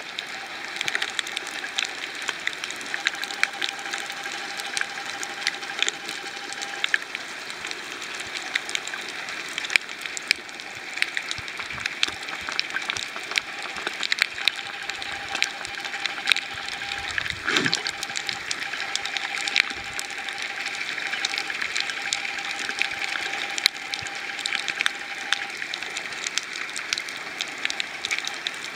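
Underwater coral reef ambience: a steady hiss thick with sharp crackling clicks, typical of snapping shrimp, and a faint steady hum that stops and starts.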